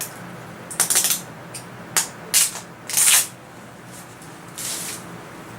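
A Blu-ray collector's edition box being opened and handled: a string of short rustling and scraping noises of plastic and cardboard packaging, the loudest about three seconds in.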